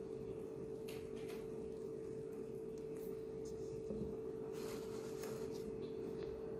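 Thick cake batter being poured from a bowl into a metal baking pan: only faint soft taps and a brief soft rustle about two-thirds through, over a steady background hum.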